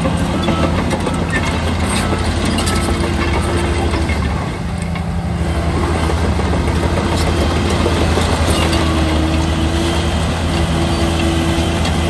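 Heavy diesel earthmoving machinery running steadily, with a reversing beeper sounding over it for the first few seconds. The engine level dips briefly near the middle.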